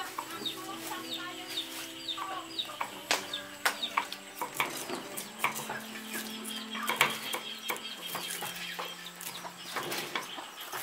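Two cleavers chopping red chillies on a wooden chopping block, a quick run of sharp knocks that starts about three seconds in. Chickens cluck and peep in the background, with short high chirps most noticeable in the first couple of seconds.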